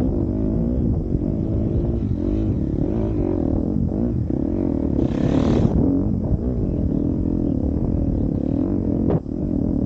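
KTM 250 SX-F dirt bike's four-stroke single-cylinder engine running under load on a trail climb, its revs rising and falling continuously. A short rush of hiss comes about halfway through, and a sharp click comes near the end.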